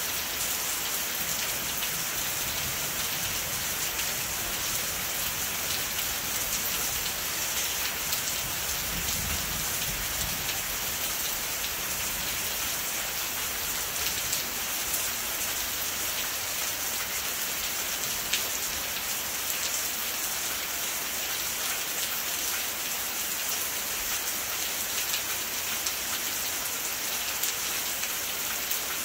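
Steady rain falling: a constant hiss of rain on surfaces, with individual drops ticking through it.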